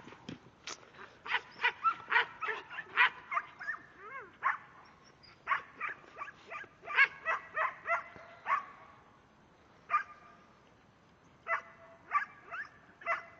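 A herding dog barking at cattle in quick runs of short barks, with pauses between the runs.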